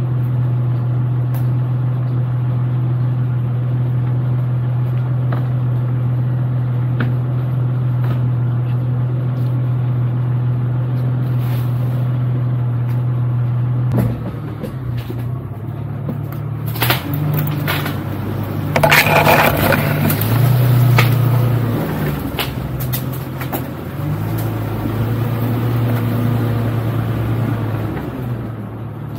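Jeep Cherokee XJ engine running steadily at low revs. About halfway through, its note starts rising and falling as the Jeep crawls over rough woodland ground, with knocks and scrapes against the body that are loudest a few seconds later.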